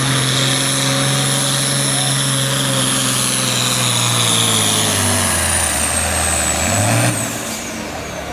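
Super Farm class pulling tractor's turbocharged diesel engine running flat out under load, with a high turbo whistle over it. About five seconds in the engine pitch drops as it bogs down under the sled, rises briefly near seven seconds, then the engine backs off.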